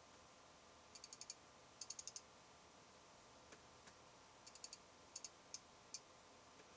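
Fuji X-Pro1 lens aperture chatter: the aperture blades clicking faintly, in two quick bursts of about five high-pitched clicks around one and two seconds in, then in scattered single clicks and small clusters. The clicking is too quiet for the sound meter to register at about two feet.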